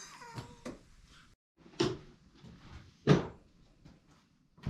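Two sharp knocks about a second and a quarter apart, the second the louder, then a shorter knock near the end, like solid objects being handled or set down.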